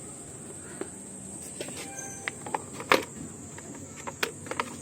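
Scattered small clicks and knocks from handling tools and parts during electrical repair work, the loudest about three seconds in, with a faint short tone about two seconds in.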